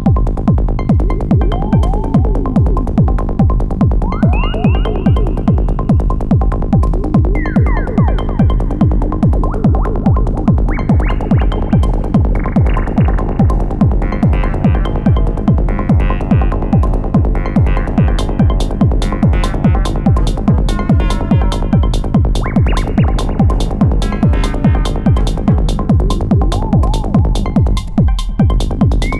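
Elektron Model:Cycles groovebox playing a hypnotic psy-techno pattern. A steady, driving kick drum beat runs under a rolling bassline, with synth notes that glide in pitch.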